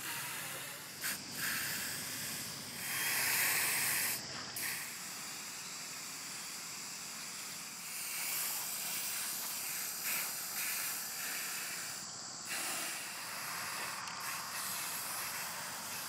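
Aerosol spray-paint can hissing in bursts, a short one about a second in and a longer, louder one around three to four seconds in.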